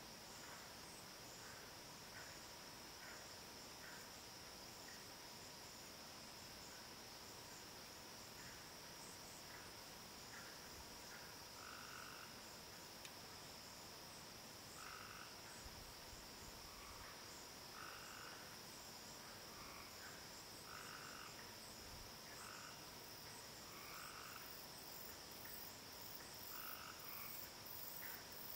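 Faint evening chorus of night insects: a steady high trill of crickets. From about ten seconds in, short calls at a lower pitch repeat roughly once a second.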